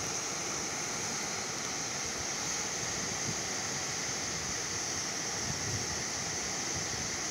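A steady, even rushing noise with no breaks or separate events.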